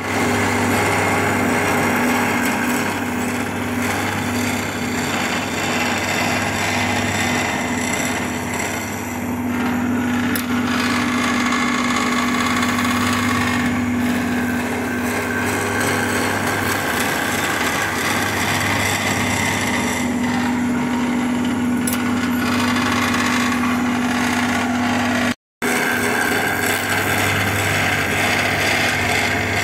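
A power tool running steadily with a constant hum, briefly cut off by an edit about 25 seconds in.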